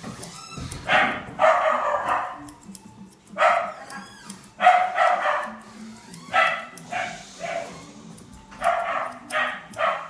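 A dog barking over and over, short barks in quick runs of two or three, with brief gaps between the runs.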